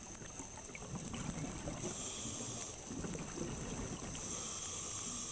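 Scuba regulator breathing underwater: two hisses about a second long, with a low bubbling rumble between them.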